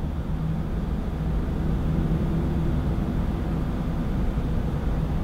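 Steady low rumble of background noise with a faint hum, no distinct events.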